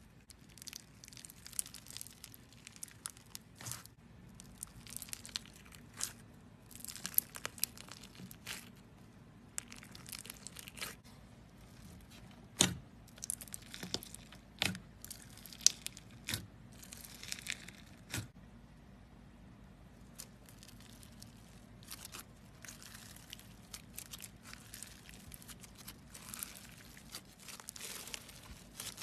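Green slime packed with clear plastic beads being poked, squeezed and stretched by fingers: irregular crunching and crackling, with a few sharper pops in the middle.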